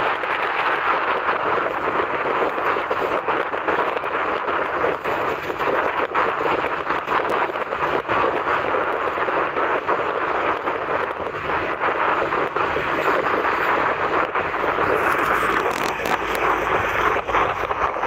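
Steady rushing of wind and sea surf off the shore, an even noise with no distinct wave breaks, growing a little stronger in a gust near the end.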